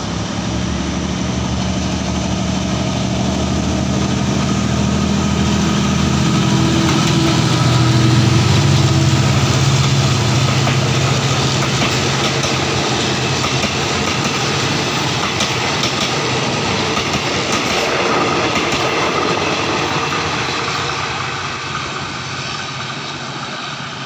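GEK-class diesel-electric locomotive hauling a passenger train past at close range. Its engine drone builds to a peak about eight seconds in as the locomotive goes by. After that the rumble of the carriages' wheels on the rails takes over and fades near the end.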